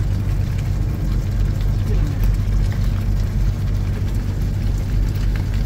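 Steady low drone of an idling semi-truck diesel engine, heard from inside the truck, with faint light clicks of a spoon scraping pasta from a non-stick pot.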